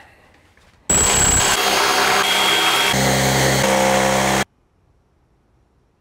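An electric power tool's motor runs steadily for about three and a half seconds, its pitch shifting a couple of times near the end, then cuts off suddenly.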